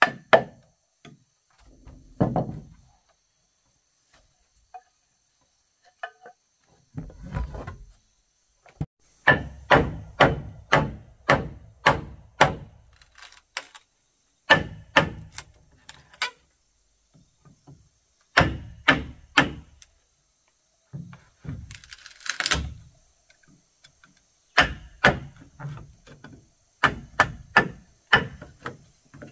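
Hammer striking wood in runs of quick blows, about two to three a second, with short pauses between runs, as floor finishing strips are nailed down. There is a brief rasping noise a little past the middle, and insects chirp steadily and faintly underneath.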